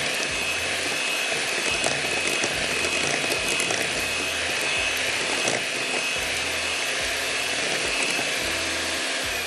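Electric hand beater running steadily, whirring with a high whine as it beats condensed milk and cream together in a bowl. The whine begins to fall right at the end as it is switched off.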